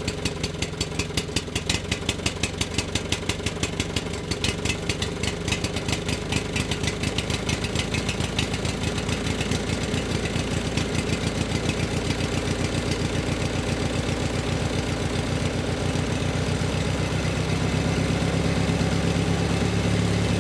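A motor engine running, its firing beats a few a second at first and quickening steadily until they blend into a smooth, slightly louder hum near the end as the engine speeds up.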